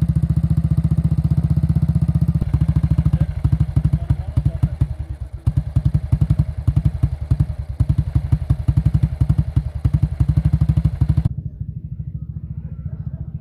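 Old British single-cylinder motorcycle engine running close by, with a rapid, even, low thudding exhaust beat. About 11 seconds in, the sound drops quieter and duller.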